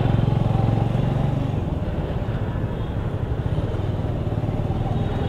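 Motorcycle engine running at low speed as the bike creeps through slow traffic, a steady low note that eases a little after about two seconds.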